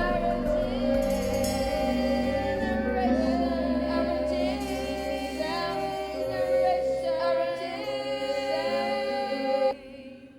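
Background music of sustained, wordless sung voices over a low drone, cutting off suddenly near the end and leaving a short fading echo.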